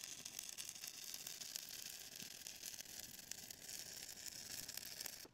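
Stick-welding arc crackling and sizzling steadily and faintly as an electrode burns along a steel bead. It cuts off suddenly near the end.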